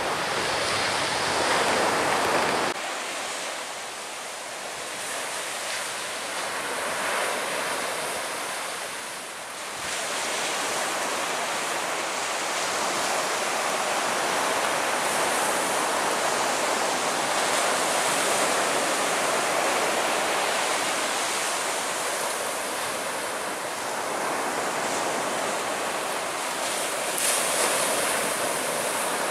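Steady rushing of surf and wind on the microphone. A deeper rumble drops away abruptly about three seconds in.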